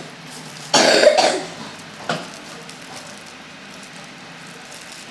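A single short cough about a second in, followed by a small click.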